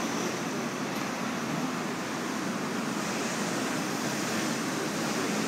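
Steady outdoor city street noise: an even rushing hiss with no distinct events.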